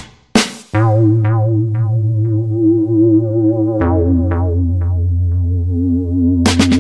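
Background electronic music: a held synthesizer chord with a wavering pitch over a steady bass note, which changes about four seconds in. Drums come back in near the end.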